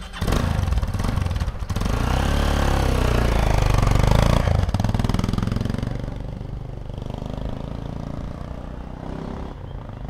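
Single-cylinder motorcycle engine of a Hero Impulse fitted with a Karizma engine, pulling away and revving, its pitch rising and falling through the gears. It is loudest about four seconds in, then drops to a quieter, steady run as the bike moves off.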